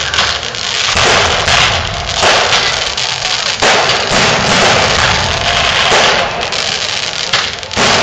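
Aerial fireworks display: shells launching and bursting overhead in quick succession, a run of loud bangs about a second apart with no quiet gap between them.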